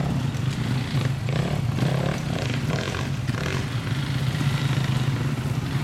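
Dirt bike engines running steadily as the bikes ride slowly over rocky ground.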